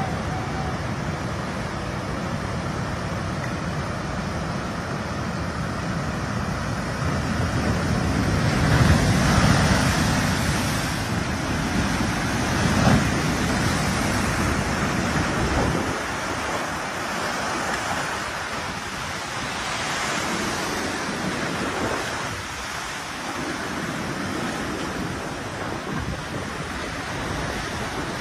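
Tsunami floodwater rushing through a street and surf breaking, with wind buffeting the microphone. The rush grows louder about eight to ten seconds in, and the deep wind rumble drops away about sixteen seconds in.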